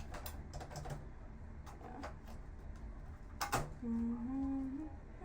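Light clicks and taps of plastic and metal parts being handled while a computer monitor is taken apart, with a sharper click about three and a half seconds in. Shortly after, a brief hum-like tone lasting about a second, rising slightly in pitch.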